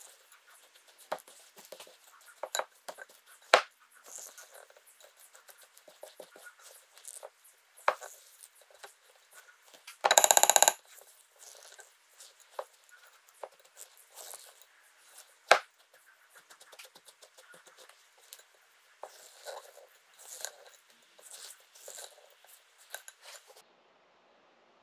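Utensil scraping and clicking in a bowl as the crumbly rhubarb-crisp topping mixture (butter, oats, brown sugar, flour) is mixed, with scattered sharp clicks and one short, louder clatter about ten seconds in.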